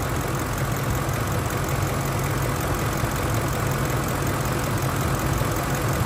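Vehicle engine idling steadily under the open hood, with its cooling fan spinning and the air conditioning running.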